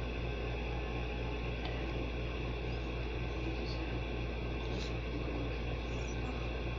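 Steady low background hum with a fast, even pulsing in it, and a few faint soft ticks on top.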